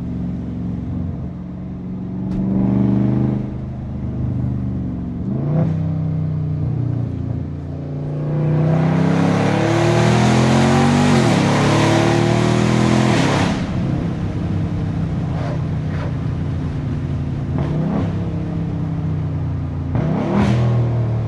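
Catless, tuned Dodge 392 Scat Pack's 6.4-litre HEMI V8 exhaust while driving, mostly cruising with a few brief revs. About eight seconds in it goes to a hard full-throttle pull lasting about five seconds, its pitch climbing through the gears, then drops back to a steady cruise.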